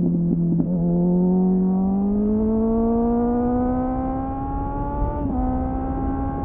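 2001 Suzuki GSF 600 Bandit's inline-four engine through an aftermarket SC-Project CR-T clone exhaust with a homemade dB-killer, heard onboard while riding: the revs climb steadily under throttle for about four seconds, dip briefly about five seconds in, then hold level.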